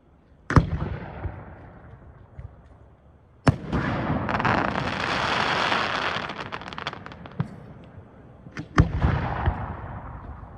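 Aerial fireworks shells bursting. There is a sharp bang about half a second in, another about three and a half seconds in followed by several seconds of dense crackling, and two more bangs close together near the end, each bang trailing off in a long rumbling echo.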